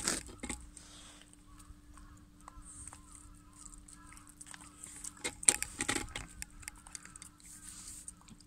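Shiba Inu eating soft food from a bowl: wet chewing and licking clicks, with a burst of louder clicks about five to six seconds in.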